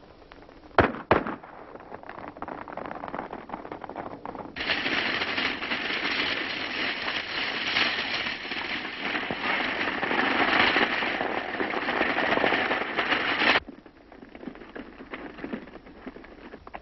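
Two sharp gunshots about a second in, then a dense, fast crackle of shots from about four seconds in that cuts off suddenly near the end, on an old film soundtrack.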